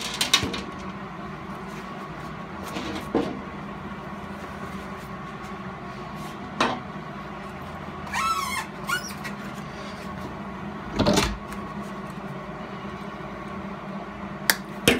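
Scattered knocks and clunks of tools and gloves being handled on a metal workbench over a steady shop hum, the loudest a single thump about eleven seconds in, with a brief squeak about eight seconds in.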